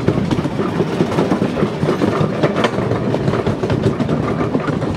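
Miniature railway train running along the track: a steady rumble from the wheels, with many rapid clicks.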